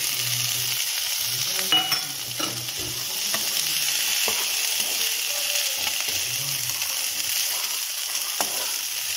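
Green peas and diced potatoes sizzling in hot oil in a non-stick pan while a wooden spatula stirs them, with a few sharp clicks and scrapes of the spatula against the pan.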